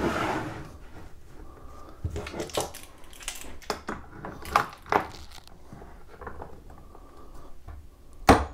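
A wooden board being fitted into a Kreg K4 pocket-hole jig and the jig's clamp adjusted: a brief scrape, then a series of light clicks and knocks of metal and wood, and one sharp, louder click near the end.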